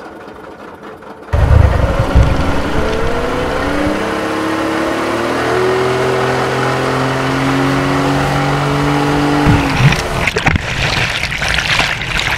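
Boat engine opening up suddenly and pulling hard to tow a wakeboarder, its note climbing steadily in pitch as it accelerates, then cutting off abruptly about nine and a half seconds in, followed by a couple of seconds of rushing noise.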